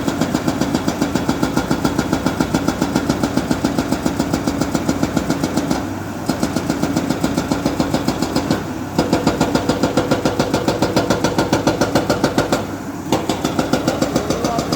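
Diesel engine of a heavy machine such as a JCB 3DX backhoe loader or a farm tractor, running with a regular pulsing of about five beats a second. It briefly drops out three times, about six, nine and thirteen seconds in.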